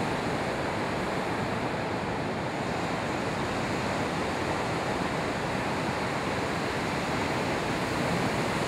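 Steady, unbroken rush of ocean surf, waves breaking.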